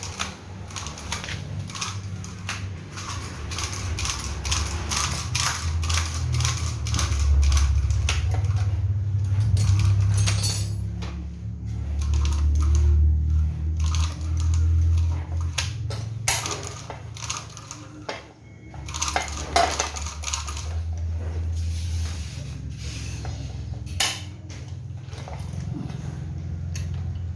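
Metal tools and chainsaw parts clinking and clicking against each other during hand repair work, many small sharp knocks, over a low rumble that swells louder midway.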